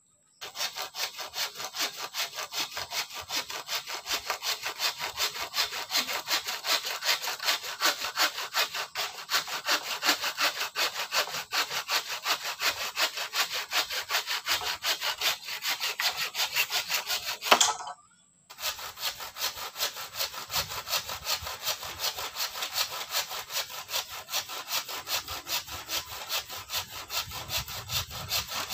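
Hand saw cutting in quick, even back-and-forth strokes. About two-thirds of the way through there is a sharp knock, the loudest moment, then a pause of under a second before the sawing resumes.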